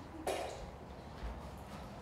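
A single short cough about a quarter second in, over steady low background noise.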